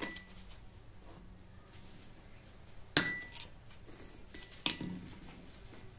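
Steel tools knocking against an anvil: a few sharp metal knocks with brief ringing, the loudest about three seconds in and another near five seconds.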